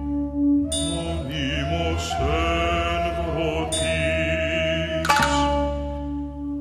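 Chant-like sung music: sustained vocal notes with a wavering vibrato over a steady low drone. The line bends in pitch early on and breaks off abruptly about five seconds in before going on.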